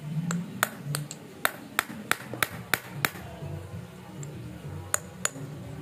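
Sharp metallic taps of a steel tool on the power steering worm-shaft parts: about ten in quick succession, roughly three a second, with a short ring after each, then two more near the end.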